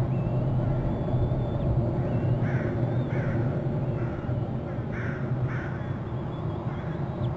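Crow cawing: four short harsh caws in two pairs, about two and a half and five seconds in. Thin high wavering whines sound in the first couple of seconds, over a steady low rumble.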